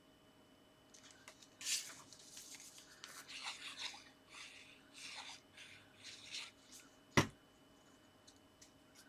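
Paper and card rustling and being rubbed as layered card pieces are handled and pressed down, in scratchy bursts, then a single sharp tap about seven seconds in, the loudest sound.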